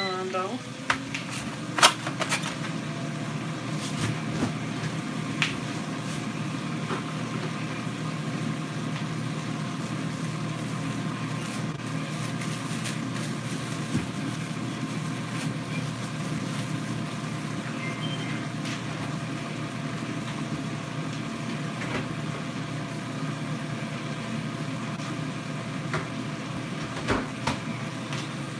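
Air fryer running: its fan gives a steady whirring hum that comes up within the first second and then holds even. A few light knocks of kitchen handling are heard over it.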